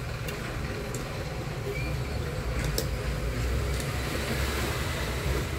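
A low, steady background rumble, with a few light clicks as a metal handle and its small plate are set against an aluminium pressure-cooker lid.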